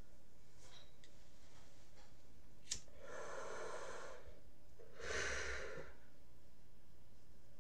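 A lighter clicks once, then a hissing pull of breath lasts about a second as a small pipe is lit and drawn on. About a second later comes a long breath out.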